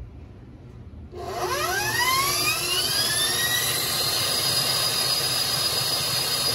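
Stand mixer switched to high speed about a second in: its motor whine rises in pitch for a few seconds, then holds steady as the beater whips the cake batter.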